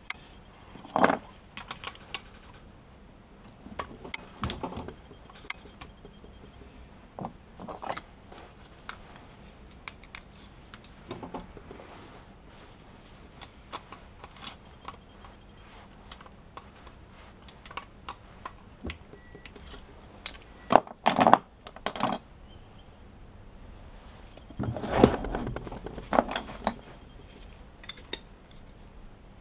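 Metal hand tools and loose engine parts clinking against the bare aluminium of a Honda 125 SOHC engine as a ring spanner works its bolts: scattered light clicks and clinks, with the sharpest clanks about two-thirds of the way in and a heavier knock and scrape shortly after.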